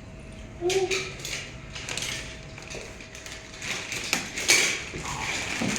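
A string of clicks, knocks and clatter from hard objects being handled, with a short voice sound about a second in.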